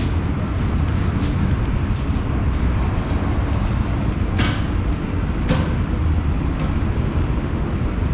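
A steady, loud low rumble with hiss over it, and two sharp clicks about a second apart near the middle.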